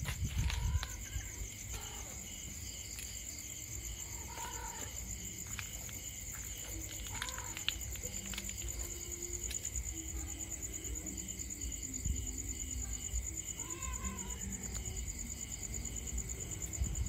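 Night insects, crickets, chirring steadily in a high continuous trill, with a second, lower insect pulsing a few times a second. A few short, faint calls come through now and then, and there is a low rumble in the first second.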